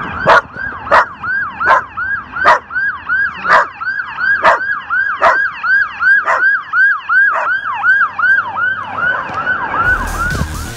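Fire engine siren on a fast yelp: a falling wail about three times a second, with sharp pulses about once a second over it. Near the end the wail slows and drops lower in pitch.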